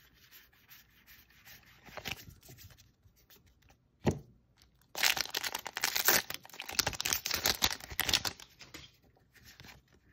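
A foil Magic: The Gathering booster pack wrapper being torn open and crinkled by hand: loud, crackly tearing from about five seconds in, lasting some four seconds. Before it, cards rub softly as they are slid through the hands, with one thump about four seconds in.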